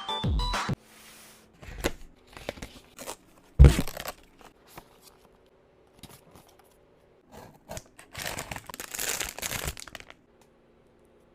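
Packaging being handled and torn open, with paper or plastic crinkling and ripping in short spells, a sharp knock about four seconds in, and a longer spell of tearing near the end.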